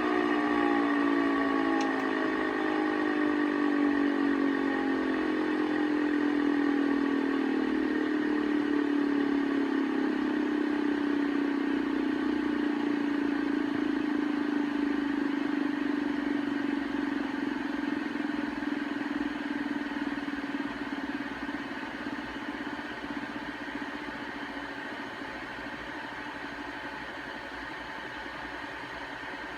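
Pfeiffer TMU-1001P turbomolecular pump spinning down: its rotor whine slides slowly lower in pitch and fades over a steady hiss. The pump is suspected of a bad bearing.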